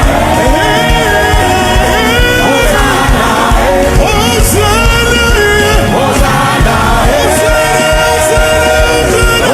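Live gospel praise music: a worship team and congregation singing over a band with a steady drum beat.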